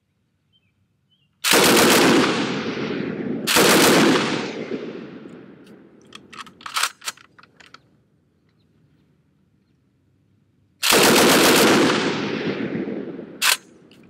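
Savage-made Lewis light machine gun in .303 British firing three short bursts: one about a second in, another two seconds later, and a third about eleven seconds in. Each burst is followed by a long echoing fade. A few sharp clicks come between the bursts.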